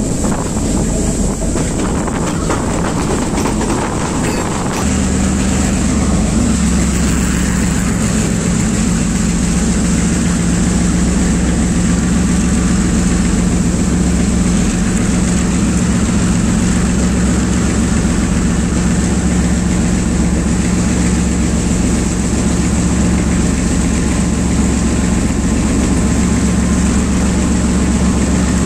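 Class M2c diesel-electric locomotive's engine heard from inside the cab, notching up about five seconds in and then running steadily under load, with a low steady drone.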